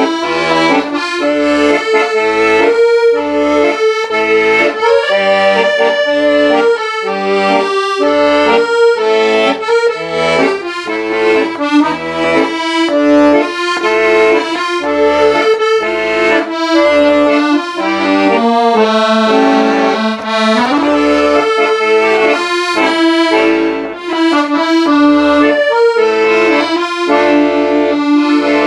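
Accordion playing a melody over a steady, regularly pulsing bass line.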